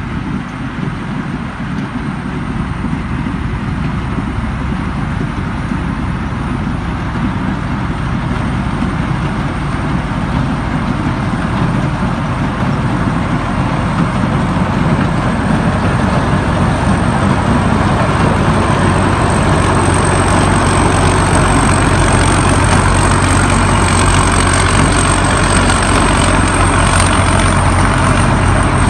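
Combine harvester's engine running steadily and gradually growing louder, with a thin high whine above it that strengthens in the second half.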